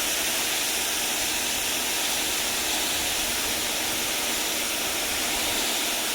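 Coyardor CP2500 electric pressure washer spraying a 15-degree fan jet onto concrete: a steady, loud hiss of high-pressure water striking the pavement, with the pump running underneath.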